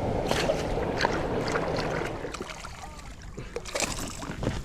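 Scattered knocks and clicks of handling on a kayak, over wind and water noise that dies down about two seconds in.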